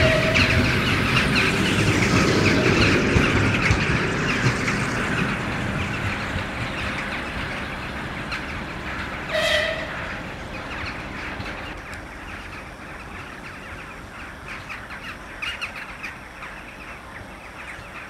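A passenger train of coaches rolling away along the track, its wheel-and-rail noise fading steadily as it draws off. About halfway through there is a brief high-pitched squeal or call.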